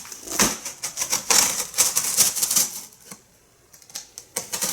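Cardboard shipping box being worked open by hand: a dense run of rapid crackles and rustles of cardboard and packing tape, which thins out about three seconds in and starts again near the end.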